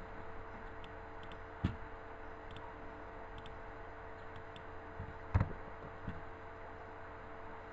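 ATC CNC router running with a steady hum and whine, with a few short knocks, the loudest about five and a half seconds in.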